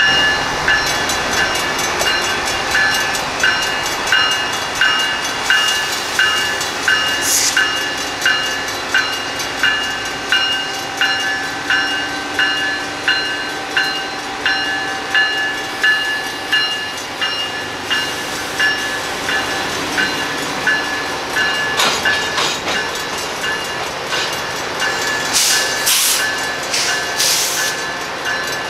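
Railroad crossing signal bells ringing steadily, about one and a half strikes a second, while a yellow genset switcher locomotive rolls slowly through the crossing with its diesel engines running. A few short hisses stand out about seven seconds in and again near the end.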